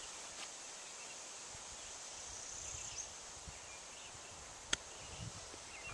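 Faint outdoor quiet with a steady high insect drone. About three-quarters of the way through comes a single sharp click: a golf club striking the ball.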